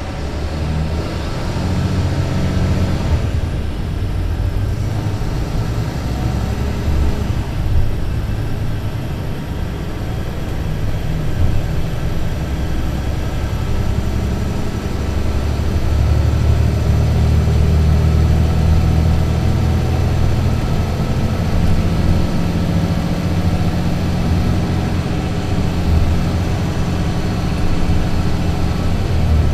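Mercedes-Benz Citaro C2 LE city bus's diesel engine and Voith automatic drivetrain running under way, a steady low rumble that gets louder from about halfway through and stays strong.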